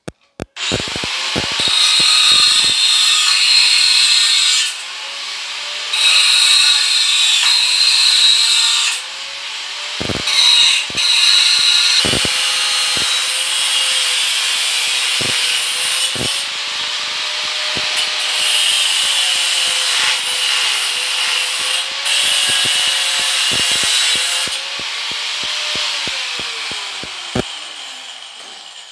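Handheld power tool running and being worked against metal parts, a loud scraping hiss over the motor's whine. The pitch sags and recovers several times as the tool is loaded and eased off, and it spins down near the end.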